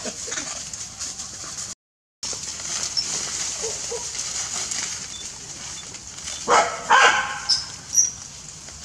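A dog barking and yelping in a few short, pitched calls, bunched about six and a half to seven and a half seconds in, with one more near the end.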